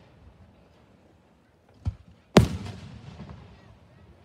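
Aerial fireworks shells bursting: a smaller bang a little under two seconds in, then a loud bang about half a second later that trails off in a long echo.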